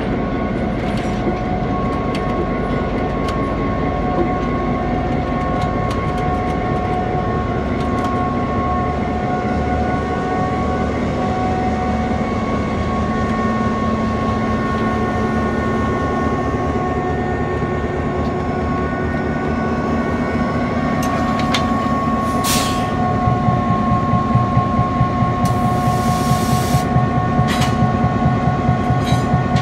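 EMD GP7 diesel-electric locomotive with a 16-cylinder 567 engine, running with a steady whine as it moves slowly past, shoving a dead steam locomotive. Near the end come a short hiss and then a longer one, and the engine sound pulses regularly.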